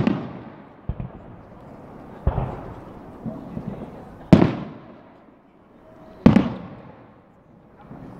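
Aerial firework shells bursting. There is a small pop about a second in, then three loud bangs roughly two seconds apart, each followed by a rumbling echo that fades away.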